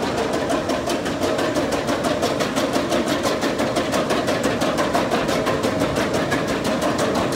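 A machine running with a steady hum and a rapid, even clicking of about six clicks a second, which becomes clearer about a second and a half in.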